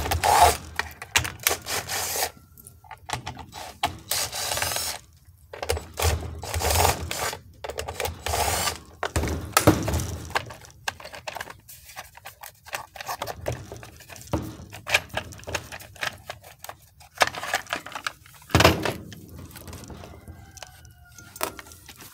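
Cordless DeWalt impact driver backing out the screws of a chainsaw's top cover in several short runs, most within the first ten seconds and one more near the end, with clunks of the plastic cover and tools being handled in between.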